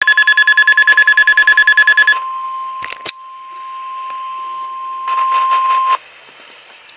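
Eton FR-600 weather radio's alert siren beeping rapidly, about ten beeps a second, over the steady NOAA Weather Radio warning alarm tone that announces a warning. The beeping stops after about two seconds and two clicks follow about a second later. The single steady tone carries on until it cuts off suddenly near six seconds.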